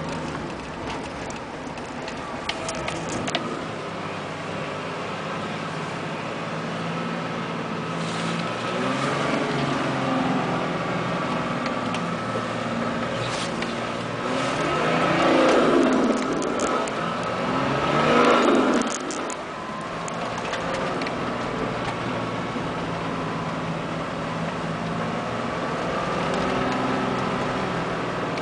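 Nissan Patrol GR Y60's 2.8 turbo-diesel straight-six heard from inside the cab while driving, running steadily, then revving up sharply twice a little past halfway. Short knocks and rattles come through now and then.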